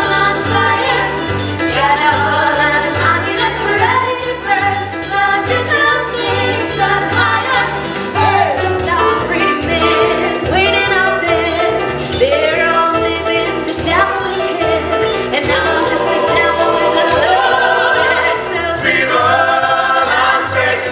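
Music with singing over a steady, pulsing bass line; the voices slide between notes.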